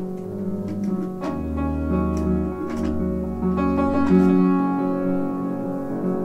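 Free-jazz improvisation on acoustic instruments, led by piano with upright bass, with struck notes over several held tones and a low held note through the middle.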